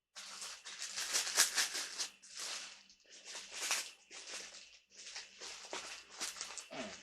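Rustling and light rattling from parts being handled, in three stretches with small clicks among them.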